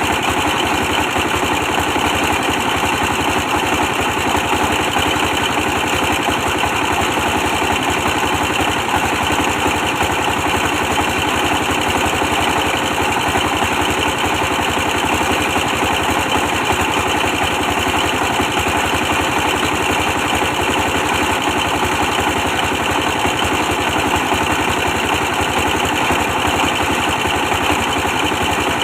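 A 24 hp stationary diesel engine running steadily with a fast, even beat, powering a brick press machine.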